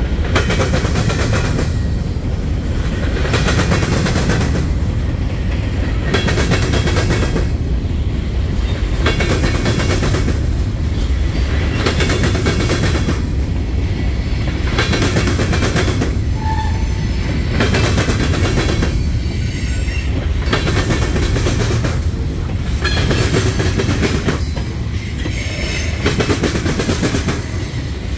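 Freight cars of a mixed freight train rolling past: covered hoppers, then tank cars. A steady low rumble runs under wheel clatter that comes in a burst about every two seconds as each pair of trucks passes over the track.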